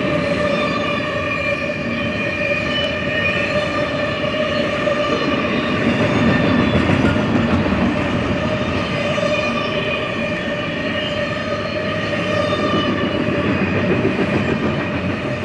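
Double-stack intermodal freight cars rolling past: a steady rumble of steel wheels on rail, with a steady ringing tone held above it.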